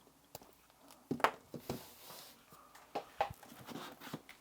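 Handling noises: a scattering of light clicks and knocks with a brief rustle, from charging cables and devices being moved and plugged in on a tabletop.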